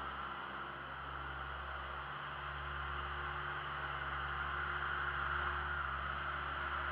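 Bobcat skid-steer loader's engine running as it drives closer, with a steady hum that grows slowly louder over the second half.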